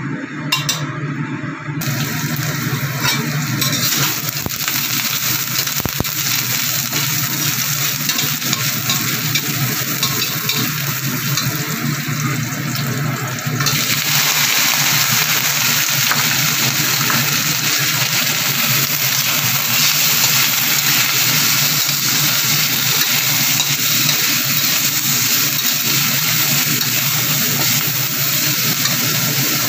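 Sliced vegetables sizzling in hot oil in a stainless-steel wok while being stirred with a metal spatula. About halfway through, the sizzle gets louder and stays so as more slices are tipped in from a bowl.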